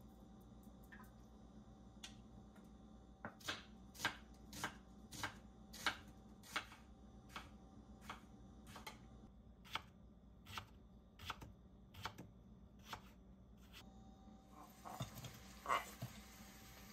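Knife slicing king oyster mushrooms on a cutting board: a steady run of crisp cuts, roughly three every two seconds, then a short rustle near the end.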